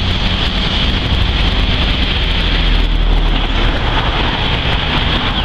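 Steady outdoor ambience: a continuous low rumble under a constant high-pitched hiss, with no distinct events standing out.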